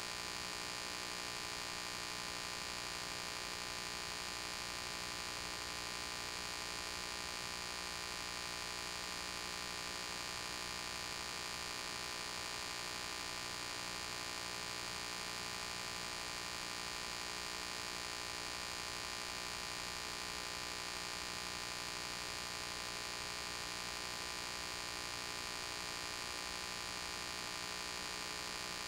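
Steady electrical mains hum with many overtones under an even hiss, unchanging throughout and with no other sound. This is the background noise of a transfer of silent film footage.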